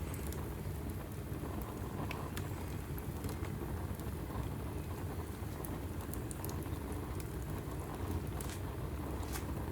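Wood fire burning in a fireplace: a steady low rumble of the flames with scattered sharp crackles and pops from the logs.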